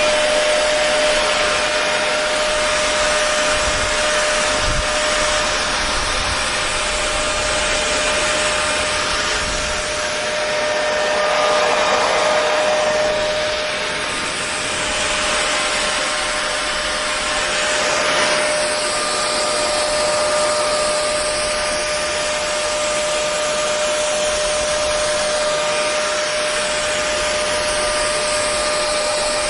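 Hair dryer running steadily: a continuous blowing hiss over a constant motor hum, with slight swells in loudness.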